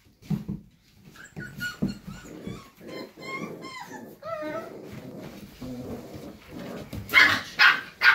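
Puppies whimpering and yipping in high, wavering squeals while they tug and play-fight, with a few dull knocks. Near the end come three loud, harsh bursts.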